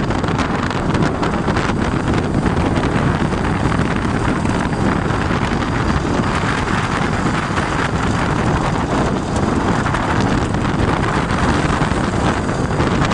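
Wind buffeting the microphone of a camera riding along with moving motorcycles, over the running of their engines, loud and steady throughout.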